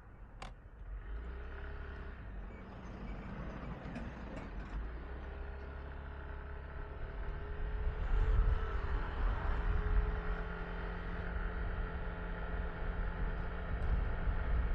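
Yamaha Tricity 155 scooter's single-cylinder engine running while riding, with low wind rumble on the microphone. Both get louder about halfway through as the engine note rises slightly. A sharp click sounds just at the start.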